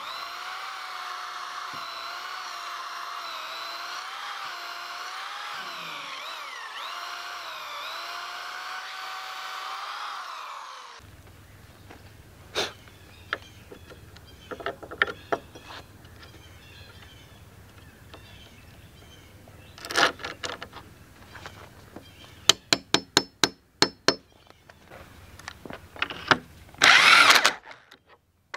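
Corded electric drill boring a pilot hole into a log, running steadily with a wavering pitch for about ten seconds, then stopping. Scattered taps and clicks of hand work follow, with a quick run of sharp clicks, and near the end an electric impact drill gives a short loud burst driving a lag bolt.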